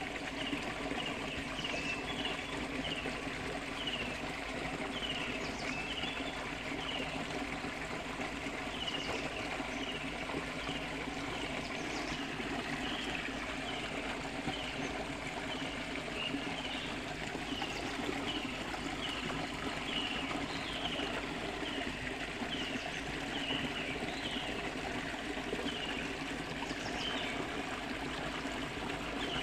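Shallow stream flowing and trickling steadily. Over it, a short high chirping call repeats about once a second.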